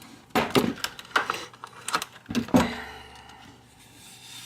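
A padlock and its retail packaging being handled and opened: a run of sharp clicks, taps and rattles in the first couple of seconds, then quieter handling.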